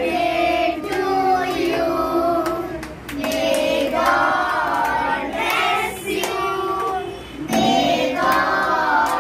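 A group of children and adults singing a birthday song together in sung phrases, with hand clapping.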